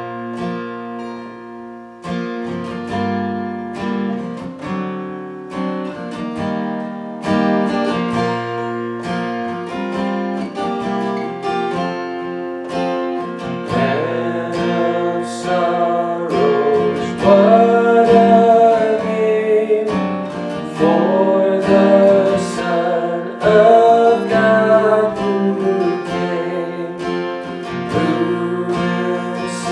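Acoustic guitar strummed and picked in steady chords, with a man's singing voice joining about halfway through.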